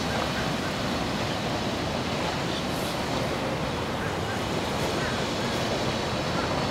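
A small motorboat's engine running steadily as it cruises past, mixed with wind and water noise.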